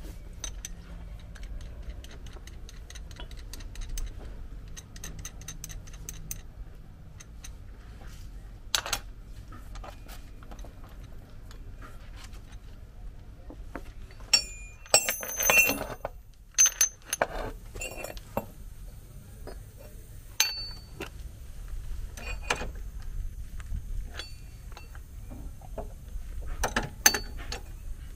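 Metal parts of a hydraulic ball-joint press (cylinder, thrust pieces and press frame) clicking and clinking as they are handled and fitted onto the ball joint of a front suspension. A louder clatter of metal on metal comes about halfway through, and again near the end.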